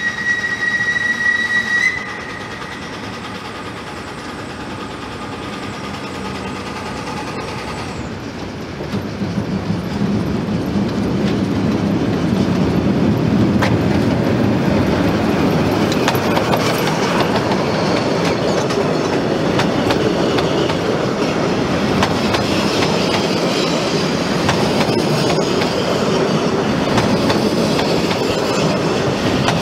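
Steam locomotive Pikku-Jumbo, a VR class Tk3, blows a steady whistle for about two seconds. It then approaches, louder from about eight seconds in, and passes close by over a bridge with its coaches, the wheels clattering over the rail joints.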